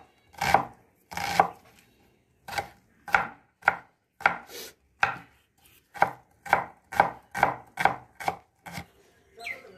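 Broad kitchen knife chopping red onion on a wooden cutting board: a steady run of knife-on-board knocks, about two a second, with a short pause about two seconds in.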